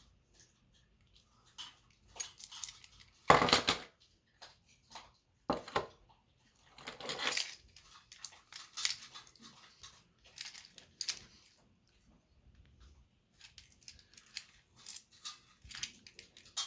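Small metal parts of an ignition lock cylinder assembly clicking and clinking as they are handled, with a loud clatter about three seconds in, another about five and a half seconds in, and a longer rattle about seven seconds in.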